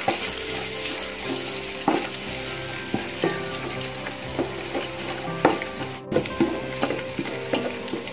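Eggs sizzling in hot oil in an aluminium pot while a slotted spatula scrambles them. The spatula scrapes and knocks against the pot at irregular moments over the steady sizzle.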